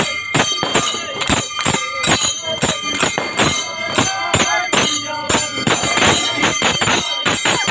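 Festival percussion band: fast, even drum beats about four or five a second, with ringing cymbals and a melody running over them.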